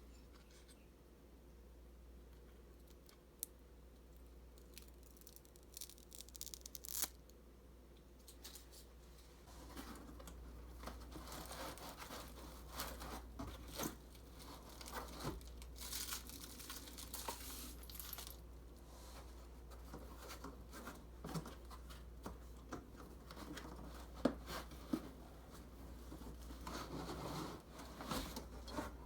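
Packaging being torn open and handled: tearing and crinkling of plastic and cardboard, quiet at first, then steady rustling with scattered clicks and knocks from about ten seconds in, over a low steady hum.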